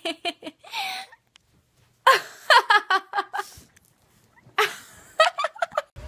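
A young woman laughing hard into the phone, in three bursts of rapid giggling with short pauses between.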